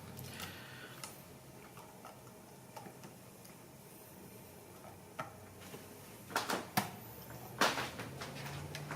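Handling noise as a plastic-and-metal model locomotive is set on the track: scattered light clicks, then a few louder short knocks and rustles about six and a half and seven and a half seconds in, with a faint low hum coming up near the end.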